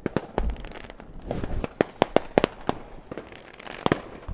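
Fireworks and firecrackers banging: a dozen or so sharp cracks at irregular intervals, some louder and closer than others.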